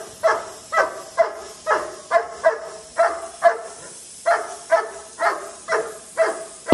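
A dog barking over and over at a steady pitch, about two barks a second, with a short pause about halfway through.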